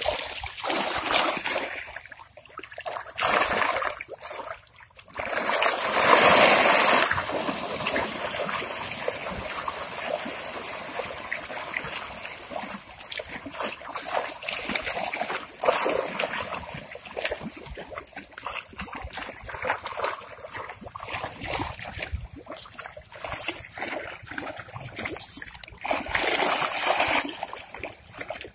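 Water splashing and trickling in a river, with many small splashes and drips and two louder splashes, about six seconds in and again near the end.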